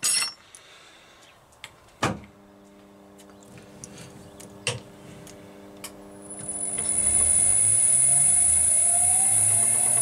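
A few sharp clicks and knocks of metal being handled, then about six seconds in a small metal lathe starts up and runs steadily with a high whine.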